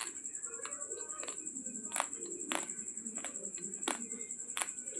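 Raw long-grain basmati rice being chewed: the dry grains crack between the teeth in sharp crunches, about eight of them, roughly one every half second to second, over a steady high-pitched whine.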